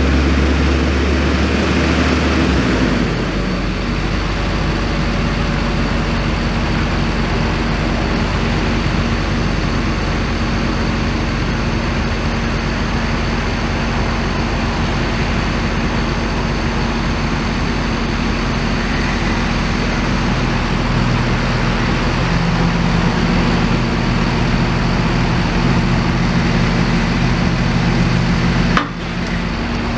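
Engines of a tracked compact loader and a tractor running steadily while they move a loaded house-moving trailer. A deep hum in the engine note drops away about two and a half seconds in.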